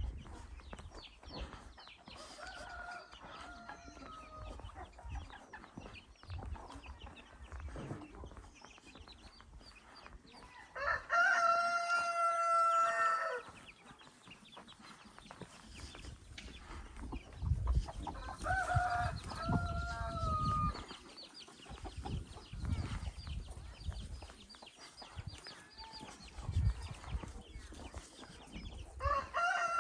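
Rooster crowing, four long crows: a faint one a few seconds in, a loud one near the middle, another about two-thirds of the way through, and one starting at the very end.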